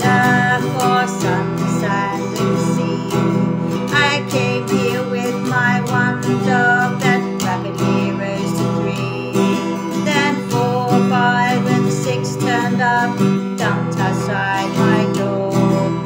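Music: strummed acoustic guitar chords with a wavering melody line above them.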